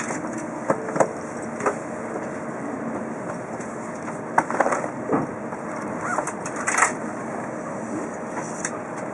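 Interior of a stopped Shinkansen car: a steady hum, with a scattering of sharp clicks and knocks, the loudest about four and a half and seven seconds in.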